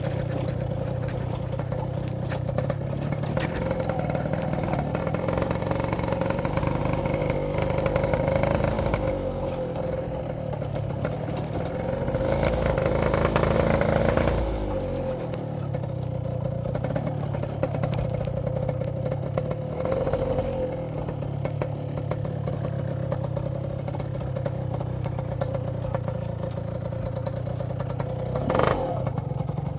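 Yamaha RX King's 135cc two-stroke single-cylinder engine running while the motorcycle is ridden. The revs climb steadily for several seconds before dropping off sharply about halfway through, then it settles back to a steady cruise, with a short sharp sound near the end.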